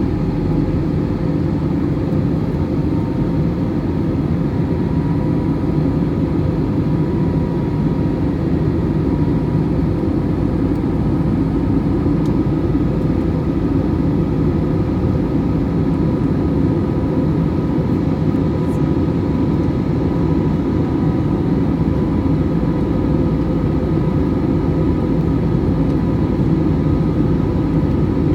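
Steady cabin noise of a jet airliner in flight, engine and airflow heard from a window seat over the wing, with a faint steady whine running through it.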